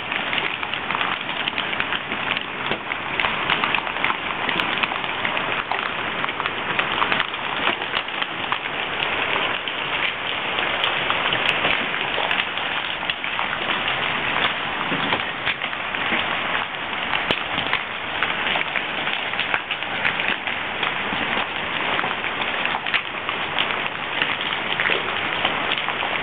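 Hailstorm: nickel- to quarter-size hailstones pelting the ground, grass and street in a dense, steady clatter of many small impacts.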